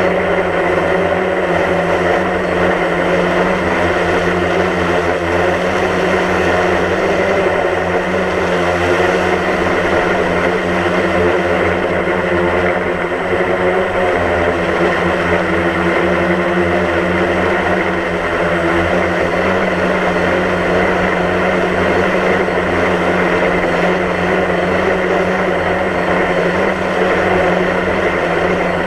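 DJI Phantom quadcopter's motors and propellers running steadily in a hover, heard from the GoPro mounted on the drone: a constant whine made of several even tones.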